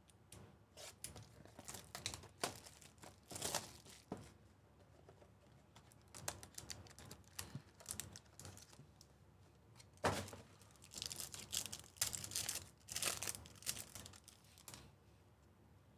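Hands opening a cardboard trading-card hobby box and tearing open a foil card pack: a run of short rustles, scrapes and crinkling tears, loudest and busiest in the second half.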